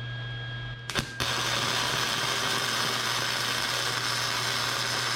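Electric arc welding on a steel exhaust pipe: a brief strike about a second in, then a steady, loud frying crackle of the arc as a bead is laid.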